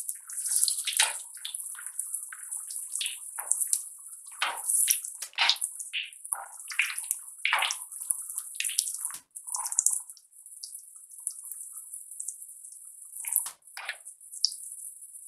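Soya chunk koftas deep-frying in hot oil in a pan: a steady high sizzle with irregular crackles and pops, which thin out after about ten seconds.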